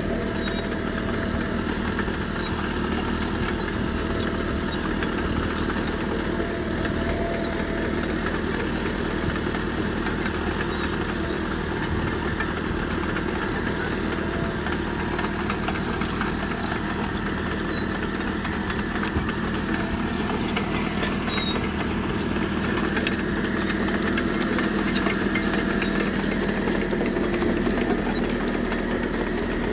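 CAT D3K crawler bulldozer's diesel engine running steadily while working, with scattered light clicks over it.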